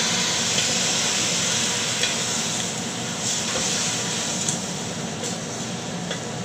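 Chicken feet sizzling in a pot as they are stirred with a wooden spatula: a steady hiss with a few light knocks and scrapes of the spatula against the pot.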